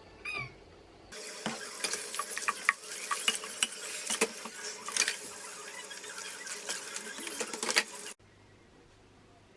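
Kitchen tap water running into a sink, with small clinks and knocks of dishes. It starts suddenly about a second in and cuts off suddenly about eight seconds in.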